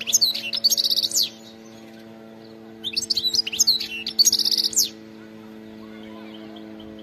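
European goldfinch singing two phrases of rapid, high twittering and trills, the first ending about a second in and the second from about three to five seconds in. A steady low hum runs underneath.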